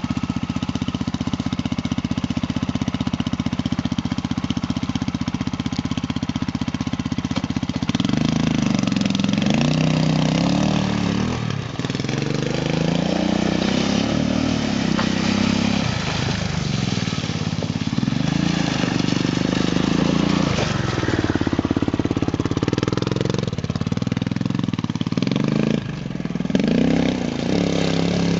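Triton 450 SuperMoto quad's engine idling steadily for about eight seconds, then revved up and down over and over as the quad is ridden around a dirt track.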